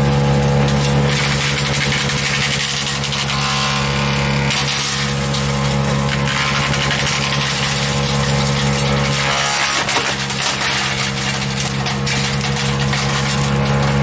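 Barreto 3107C wood chipper running steadily under load while it chips sawmill scraps, its engine drone overlaid by a dense hiss and rattle of chips blowing out the discharge into the wooden chip box. A few sharp knocks come near the end.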